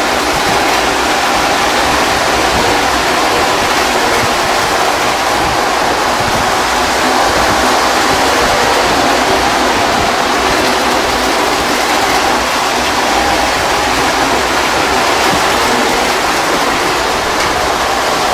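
Postwar Lionel O-gauge trains, including Alco F-A2 diesels, running on steel tubular track: a loud, steady rumble and whir of wheels and electric motors, with no break or change.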